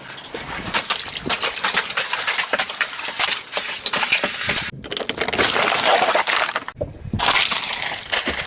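Crunching and crackling of things being crushed: dense crackles and snaps over a hiss, broken by two sudden cuts about two-thirds of the way through.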